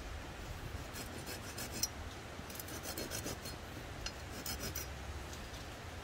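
Folding hand saw cutting a notch into a small dry branch: quick rasping saw strokes in three short runs, about a second in, around the middle, and near the end.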